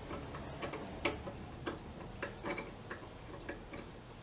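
A dozen or so light, sharp clicks and taps at uneven spacing: small metal parts such as screws being handled and set down on a workbench.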